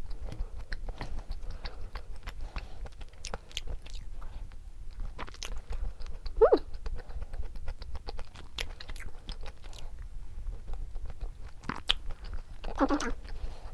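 Close-miked mouth sounds of someone chewing and biting a dry, crumbly kabocha pumpkin cream-cheese cookie: many small wet clicks and smacks. A brief hum-like throat sound comes about six seconds in and again near the end.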